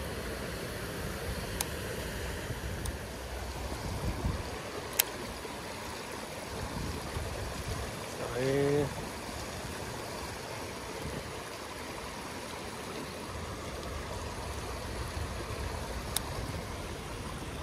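Steady rush of water running over rocks in a shallow stream, with a short voiced hum from a man about halfway through and a few sharp clicks.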